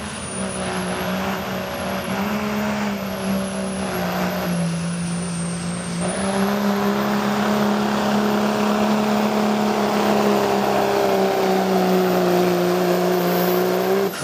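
Diesel pickup truck pulling a sled under full load, its engine running hard with a high turbo whine above it. The engine pitch dips and climbs a few times, then rises about six seconds in and holds high, the whine climbing with it, until the sound cuts off abruptly at the end.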